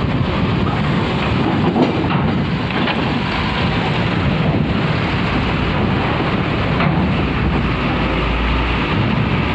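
A DAMRI coach's diesel engine running as the bus drives slowly past at close range and pulls away, over steady wind noise on the microphone. A deeper rumble swells near the end.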